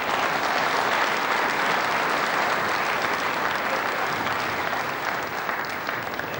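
Snooker audience applauding in a hall: a steady round of clapping that slowly tails off near the end.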